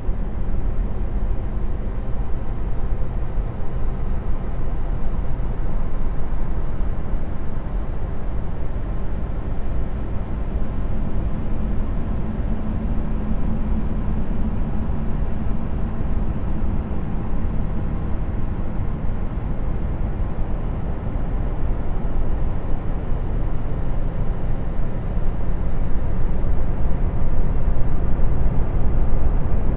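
Deep, steady rumbling drone of noise, heaviest in the low end, with no distinct events, growing a little louder near the end. It is space-ambience audio presented as the 'sound' of Jupiter's moon Callisto.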